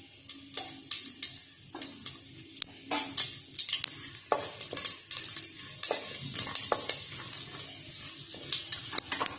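Mustard seeds popping and spluttering in hot oil in a pressure cooker, irregular sharp crackles, with a wooden spatula stirring and knocking against the cooker.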